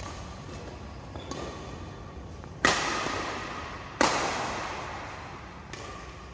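Badminton rackets striking a shuttlecock during a doubles rally. There are a few light hits, and in the middle two much louder hits about a second and a half apart, each ringing out in the hall's echo.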